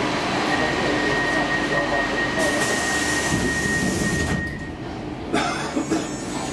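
Stockholm Metro C14 train standing at an underground platform: steady hum and hiss of the car's onboard equipment with a thin high whine. About four and a half seconds in the whine and hiss cut out suddenly, and a few sharp clicks follow.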